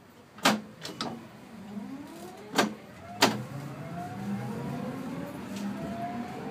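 Kumamoto City Tram 8800-series car pulling away from a stop: its electric traction motor whine climbs steadily in pitch as the tram speeds up. Several sharp clunks come in the first few seconds.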